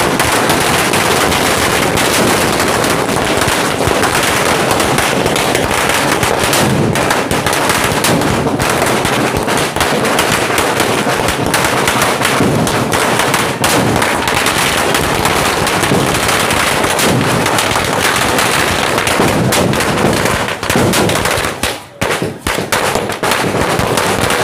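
Firecrackers going off in a rapid, unbroken barrage of sharp bangs, thinning out with gaps near the end before a last few bangs.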